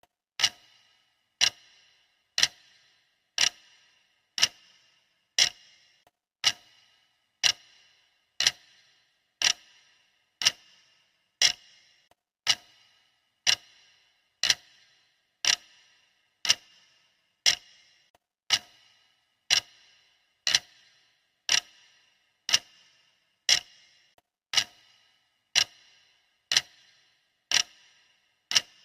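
Clock ticking, one sharp tick a second, each with a brief ring, steady and even.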